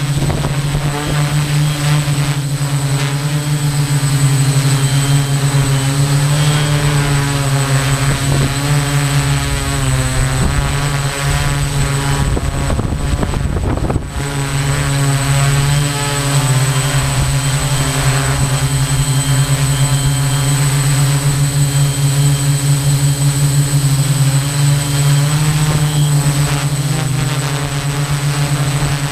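Small drone's electric motors and propellers humming steadily, heard from the drone's own camera as it climbs and flies overhead. About halfway through, the hum breaks for a couple of seconds into a rushing noise, then returns.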